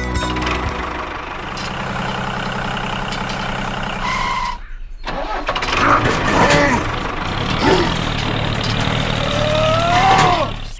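A vehicle engine running steadily, cutting out briefly near the middle; after the break the engine sound returns louder, with pitched sounds sliding up and down over it.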